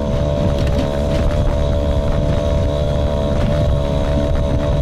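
Outboard motor of a small boat running steadily under way.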